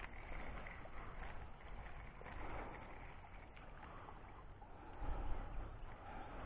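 A small hooked fish splashing lightly at the water's surface as it is reeled in on a spinning rod, under steady wind noise on the microphone, with a low gust of rumble about five seconds in.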